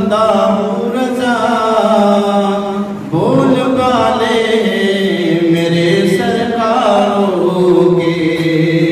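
A solo male voice chanting a devotional verse into a microphone in slow, drawn-out melodic phrases. The held notes glide in pitch, with a short break for breath a little past three seconds in.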